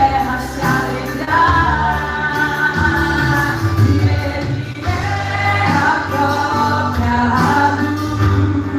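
Live gospel worship song: a female lead voice singing over a band with steady bass.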